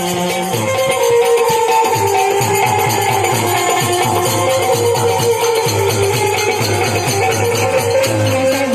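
Instrumental folk music: held melody notes over a drum beat, with jingling percussion.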